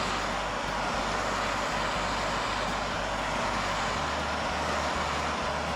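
Steady, unbroken rushing noise from shop equipment running continuously, with no strokes or rhythm.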